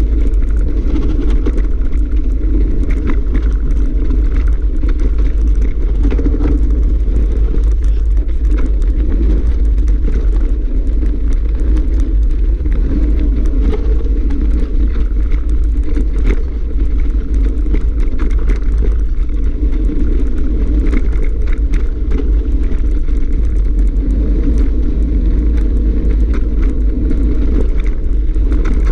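Mountain bike rolling down a gravel fire trail, recorded on a bike-mounted or helmet camera: a loud, steady rumble of wind and tyre noise on the microphone, with frequent small rattles and clicks from the bike jolting over stones.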